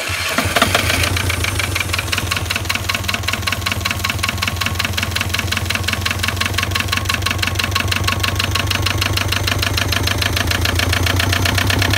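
Sailing yacht's inboard diesel engine running at idle just after a cold start, with a steady, fast, even beat, heard close up in the engine compartment.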